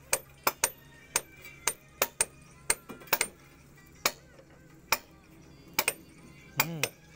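Sharp metallic clinks and knocks at an irregular pace, about one or two a second, from hand work on a precast concrete panel wall.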